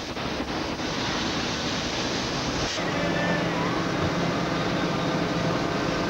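High-pressure dishwashing machine running: a steady hiss of spraying water, with a brief break about three seconds in.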